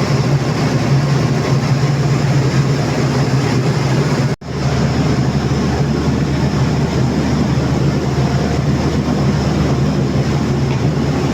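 Train running: a steady low engine hum over a constant rumble, cut off briefly about four seconds in.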